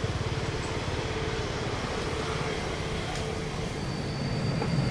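Boeing 787-9 jet engines at takeoff power as the airliner climbs away, a steady low rumble with a crackling flutter.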